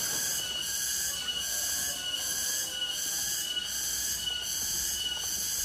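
Insects calling in a chorus: high-pitched buzzing that pulses evenly about three times a second, with a thin steady whine above it.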